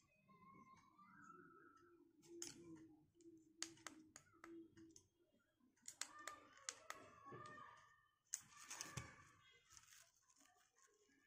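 Faint plastic clicks and knocks from LED pocket torches being handled and switched on, over near silence.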